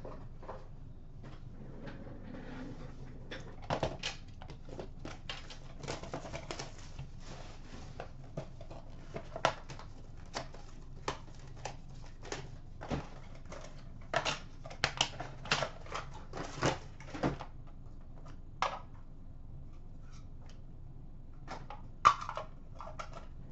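A cardboard box of hockey cards being opened and its packs and cards handled: irregular clicks, taps and rustles, with a sharper knock near the end.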